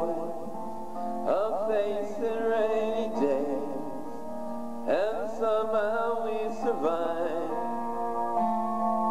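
A man singing a slow pop ballad over piano and soft keyboard accompaniment, two phrases with wavering held notes. Near the end the voice stops and sustained keyboard chords carry on.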